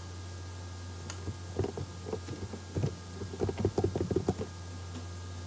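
Typing on a computer keyboard: scattered soft key taps, coming thickest in a quick run about three to four seconds in, over a steady low hum.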